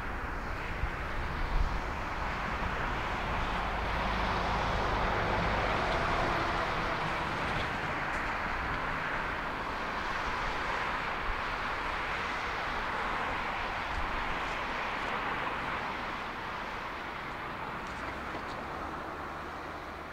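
Four CFM56 jet engines of an Airbus A340-300 at takeoff thrust during the takeoff roll: a steady rushing noise with a low rumble beneath. It swells over the first few seconds and then slowly fades as the airliner accelerates away down the runway toward lift-off.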